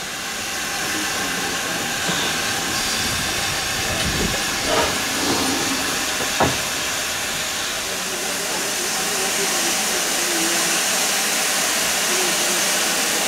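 Steam hissing steadily from two double-headed GWR-type tank engines, pannier tank 9681 and small prairie 5541, as they move slowly. A few metallic clanks come between about four and six and a half seconds in, the sharpest near the end of that stretch.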